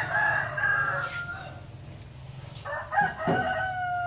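Roosters crowing: one long crow ends about a second in, and a second long, steady crow starts about three seconds in.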